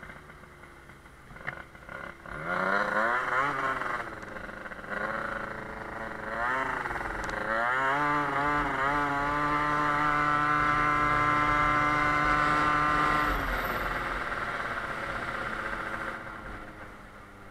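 Two-stroke 50cc scooter engine of a Sachs Speedjet RS, tuned with a Stage 6 MK2 kit, Yasuni R exhaust and 19 mm Motoforce carburettor, pulling away under throttle. After about two seconds of low running its pitch rises, dips and rises again a few times, then holds a steady high note before the throttle comes off a few seconds from the end and it falls back.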